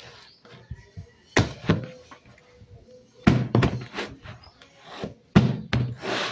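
Bread dough being kneaded by hand in a plastic bowl: dull thumps as the dough is pressed and slapped against the bowl, coming in pairs about every two seconds.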